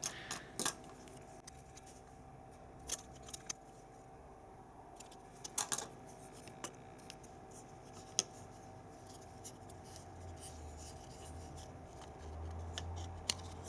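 Small plastic clicks and taps from the parts of a R.A.T. 9 computer mouse being handled and fitted back together, with a faint low rumble from handling in the last few seconds.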